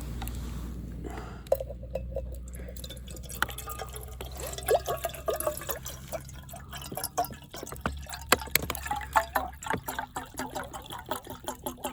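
Liquid sounds: irregular dripping and gurgling blips mixed with light clicks, getting busier after the first few seconds.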